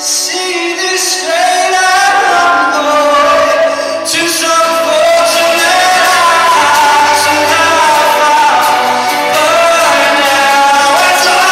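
Live music: a man singing a pop song with instrumental accompaniment, getting louder over the first second or so and then holding steady.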